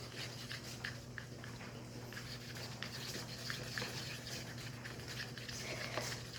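Faint scraping and light tapping of popsicle sticks stirring food colouring into a slime mixture, with small scattered clicks over a low steady hum.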